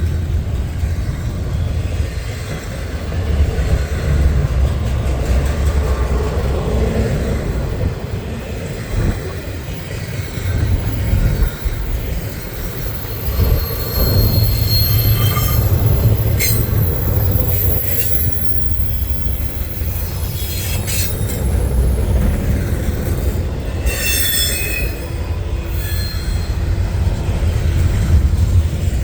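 Intermodal freight train rolling past at speed: a steady low rumble of wheels on rail, with brief high-pitched wheel squeals in the second half.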